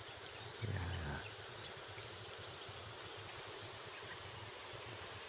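Steady outdoor rushing hiss, even and without any clear pitch, with a brief low rumble like a gust buffeting the microphone about half a second in.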